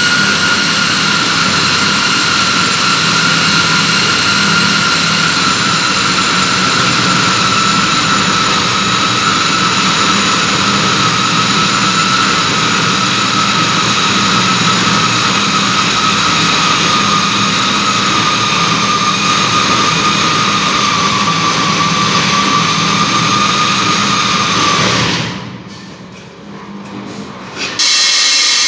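Electric core drill running steadily through concrete, a loud motor whine that slowly drops in pitch as it works. It cuts out for about three seconds near the end, then starts up again.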